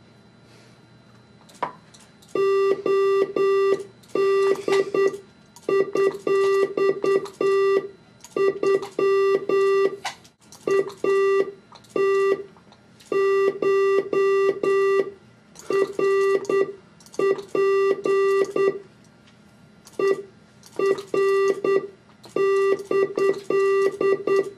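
Electronic Morse code beeps on one steady mid-pitched tone, short dots and long dashes keyed from head switches, each with a faint click. They come in quick groups with short pauses between, the letters of a word being spelled out.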